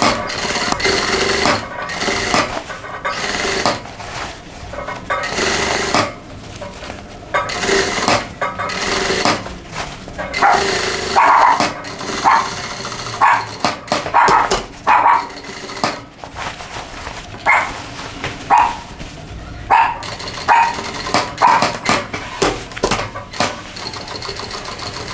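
Industrial single-needle sewing machine stitching in short runs. From about ten seconds in, a dog barks repeatedly in short, separate barks.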